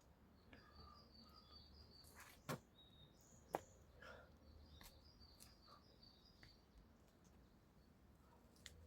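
Faint bird chirping in runs of short high notes, with two sharp clicks about a second apart.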